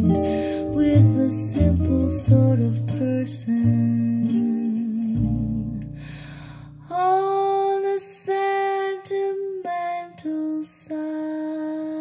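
Music played back through hi-fi stand-mount speakers: guitar notes over a bass line. The bass drops out about halfway, leaving ringing plucked notes.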